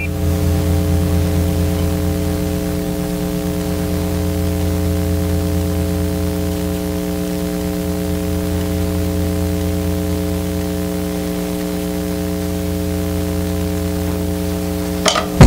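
A steady droning chord of several held tones under a layer of static-like hiss. Drum kit hits come in right at the end.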